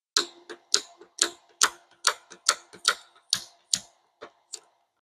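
Razor blade scraping at fresh paint on a car hood in short, sharp strokes, about four a second, digging out a gnat stuck in the paint. The strokes stop shortly before the end.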